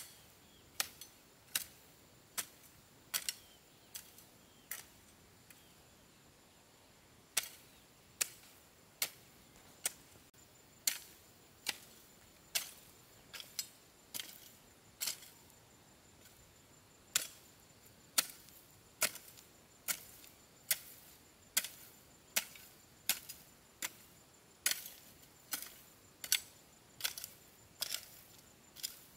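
A hand tool striking again and again in a steady chopping rhythm, a little more than one sharp blow a second, with a pause of about two seconds after the first few strokes.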